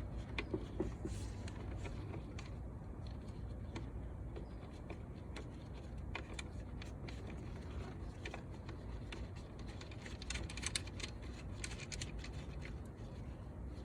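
Light clicks and scrapes of hand-work on an engine bay: a hose being fitted under a bracket and its 10 mm bolt put back in, with a run of quick clicks about ten seconds in, over a steady low rumble.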